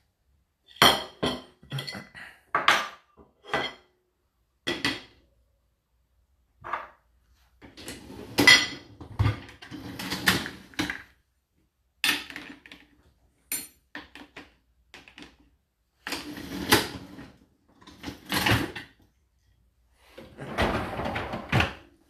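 Dishes and cutlery clinking and clattering against a dishwasher's wire racks while it is loaded, in irregular bursts of knocks and rattles.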